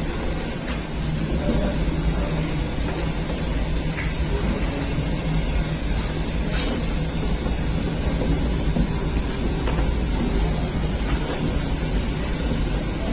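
Bakery machinery running steadily: a low motor hum and rushing rumble, with a few light knocks about four and six and a half seconds in.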